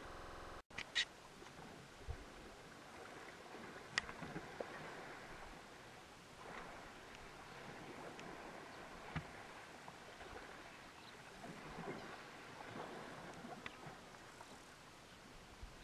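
Faint, steady outdoor background hiss with a few sharp clicks and scattered small ticks, and a brief dropout just after the start.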